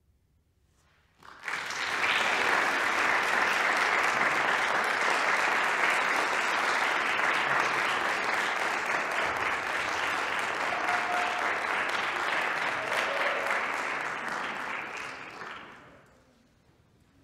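Audience applauding, starting abruptly about a second in and dying away near the end.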